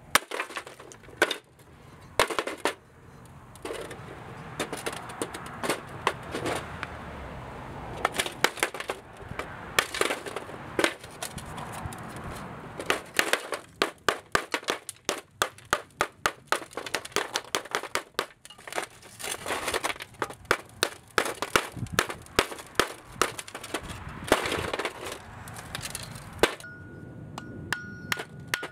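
Small mallet tapping and cracking a fired ceramic shell mold off a bronze casting, in quick runs of sharp taps, with shards breaking away and clinking onto an aluminium sheet tray. This is the knockout of a lost-wax-style shell mold after the pour.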